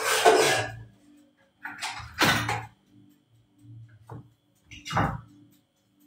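Three short bursts of clatter and handling noise from work at a kitchen counter, a second or so apart, over faint steady background music.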